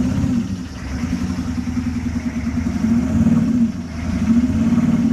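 6.5 L Detroit Diesel V8 running rough with a misfire, growing louder twice, briefly about three seconds in and again near the end.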